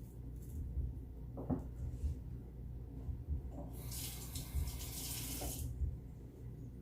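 Kitchen faucet running for about two seconds, starting a little past the middle, with a short knock about a second and a half in.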